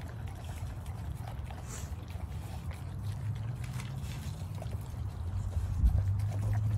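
Pit bull chewing on a raw whole chicken, faint wet chewing and clicks of teeth, over a steady low rumble that swells near the end, with a low thump about six seconds in.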